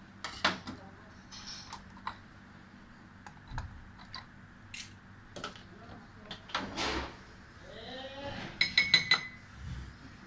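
Metal utensils clinking and scraping against dishes: scattered sharp clicks and a scrape, then a quick run of ringing clinks about nine seconds in.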